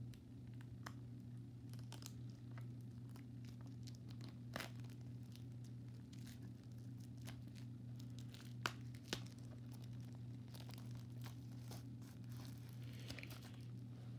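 Quiet handling of a small cardboard toy box and its clear plastic packaging: scattered crinkles, scrapes and clicks, with a few sharper clicks about four and nine seconds in. A steady low hum runs underneath.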